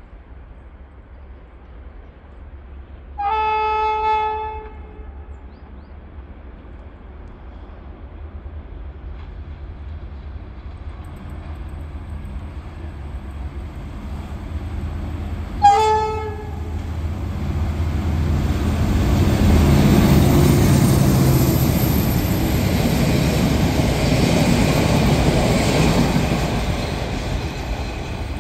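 Diesel locomotive GM 956 sounding its horn: one blast of about a second, then a shorter blast about twelve seconds later. The train then comes up and runs past with engine rumble and wheel-on-rail noise, loudest in the last third.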